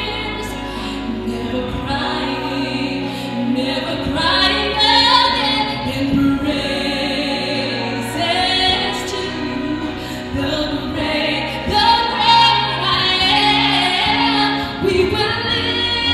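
A woman singing a gospel song through a handheld microphone, held phrases with bends and slides in pitch, over steady sustained low accompaniment.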